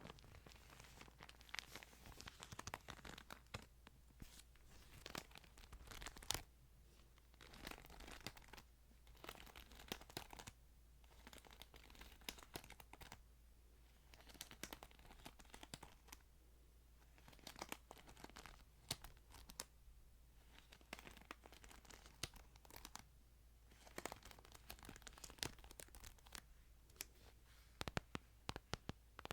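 Faint, irregular crinkling and rustling of thin Bible pages being handled and turned, with scattered light ticks.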